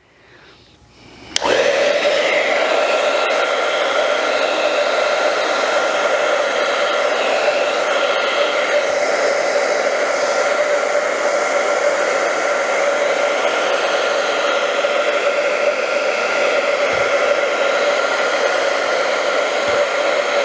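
Handheld blow dryer switched on about a second and a half in, then running steadily on one setting with a constant whoosh and a faint steady whine, heating the adhesive of a sole protector sticker.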